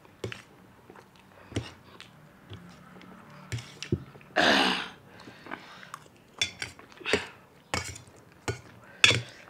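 A fork clinking and scraping on a stainless steel plate as chow mein noodles are eaten, with short sharp clicks scattered throughout. About four and a half seconds in there is one louder, longer breathy noise.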